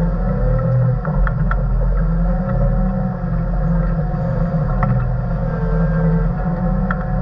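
Diesel engine of a heavy earthmoving machine running steadily under load as its blade pushes soil, heard from inside the cab, with a few faint clicks and knocks.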